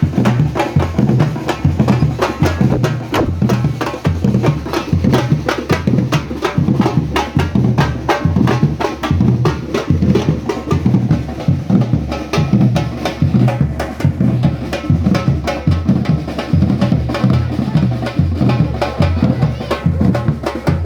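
Drum group playing a steady, fast rhythm: deep bass drums under many sharp, dense stick and wood-block-like hits.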